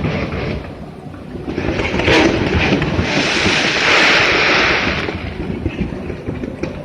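Fireworks going off: a continuous rumble of bursts, with a swell of hissing crackle in the middle.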